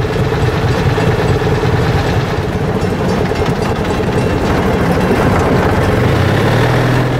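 Rail speeder car's small engine running steadily as the car travels along the track, a dense unbroken rumble.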